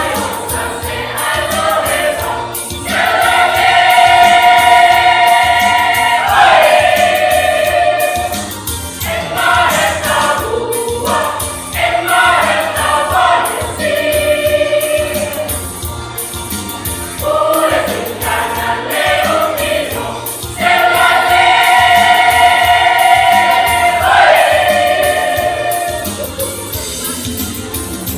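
Church choir singing a gospel hymn in parts, with long held chords that swell loudest twice.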